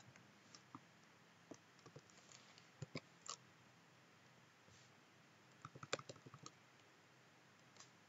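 Faint, sparse keystrokes on a computer keyboard, with a quick flurry of several keys about six seconds in.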